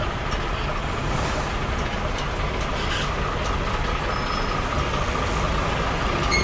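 Semi-truck's diesel engine running, a steady low rumble heard inside the cab, with a faint steady whine above it.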